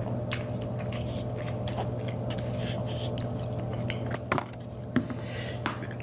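A person chewing soft-breaded fried popcorn chicken close to the microphone: small wet clicks and smacks over a steady low hum. A couple of sharper knocks come about four and five seconds in as the paper cup of chicken is handled.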